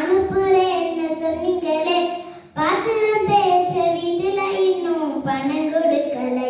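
A young girl singing a Tamil folk song solo, without accompaniment, in long held notes that glide up and down, with a short breath pause about two and a half seconds in.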